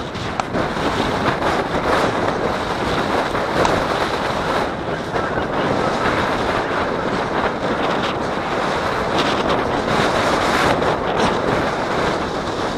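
Wind buffeting a body-worn camera's microphone in steady gusty rushes, with irregular rustling and crunching of footsteps across a stubble field.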